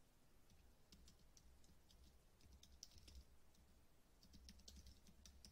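Faint, irregular keystrokes on a computer keyboard as an email address is typed, over a low steady hum.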